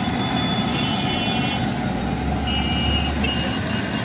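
Busy street noise: vehicle engines running, with a low rumble swelling about two seconds in, and high steady beeping tones twice. Underneath, a large wok of oil is sizzling as batter-dipped garlic chops deep-fry.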